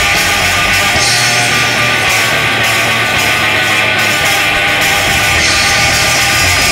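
Loud background music soundtrack.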